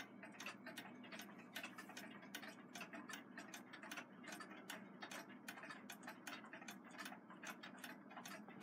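Several wind-up nickel-plated alarm clocks, Westclox models and a Mauthe Big Ben clone, ticking together. The ticks are faint and overlap, several a second and out of step.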